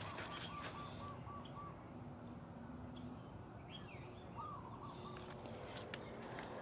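Faint outdoor bird calls: a quick run of about eight short repeated notes over the first two seconds, then another short call about four and a half seconds in, over steady background noise. A few light clicks come near the end.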